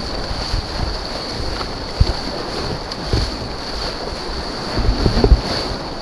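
Rushing whitewater churning around a slalom kayak's bow as the paddle blades dig in, with wind buffeting the camera microphone. A sharp splash about two seconds in, and a cluster of louder splashes near the end.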